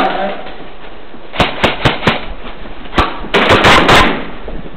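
Airsoft guns firing: a few sharp single shots, then a quick rattling burst about three and a half seconds in.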